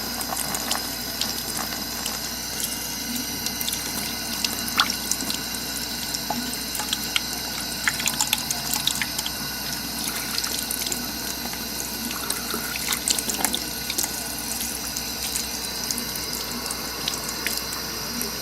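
Tap water running steadily into a sink while a smoking bowl is rinsed and worked clean, with scattered light clicks and knocks.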